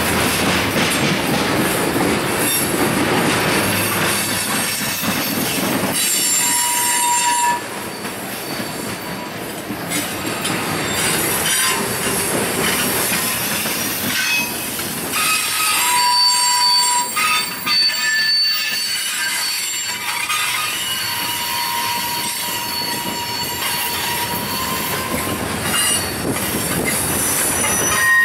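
Freight train's cars (covered hoppers and a centerbeam lumber flatcar) rolling past, steel wheels rumbling and clattering on the rails. High steady squealing tones come and go, loudest in the second half, typical of wheel flanges squealing on the curve.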